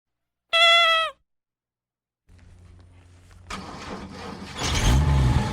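A short, loud single tone that drops slightly in pitch as it ends; after a pause, a faint low hum with light clicks. Then the diesel truck engine is cranked from about three and a half seconds in and catches loudly near the end, settling toward idle.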